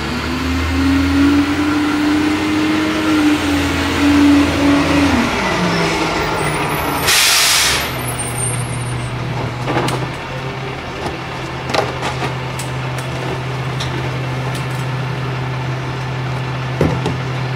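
Garbage truck's diesel engine running at a steady raised pitch that falls away about five seconds in. A sharp air-brake hiss follows about seven seconds in, then the engine settles to a low steady idle with a few light knocks.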